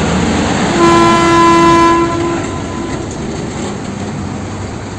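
A single steady horn blast lasting about a second and a half, starting about a second in, over a continuous rumbling running noise of a large vehicle.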